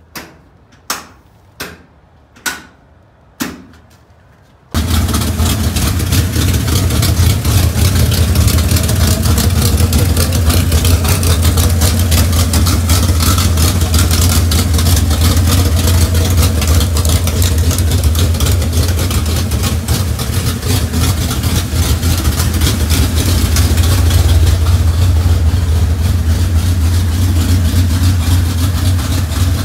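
A few sharp knocks, then about five seconds in the dirt late model's newly installed Chevrolet 350 small-block V8 comes in abruptly and runs steadily at idle, a deep low rumble, on its first cold start.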